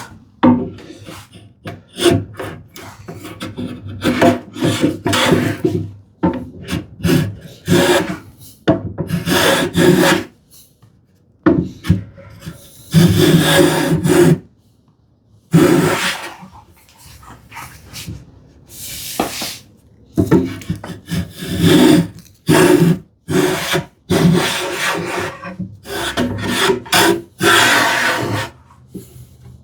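Hand plane taking shavings off the back edges of a dovetailed ash cabinet case to bring them flush: a series of rasping strokes, some short and quick, some a second or more long, with brief pauses between.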